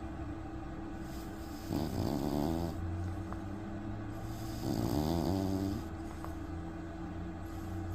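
A sleeping dog snoring: two snores, each about a second long, about three seconds apart.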